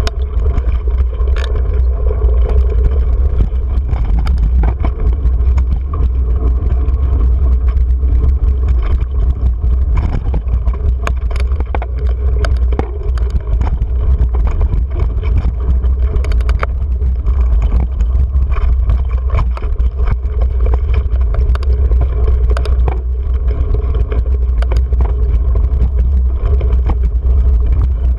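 Wind buffeting an action camera's microphone on a mountain bike riding a rocky dirt singletrack: a steady low rumble with frequent clicks and knocks as the bike rattles over stones.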